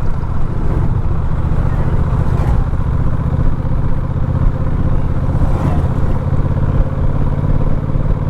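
A vehicle's engine and road rumble, running steadily while climbing, with a deep drone dominating throughout.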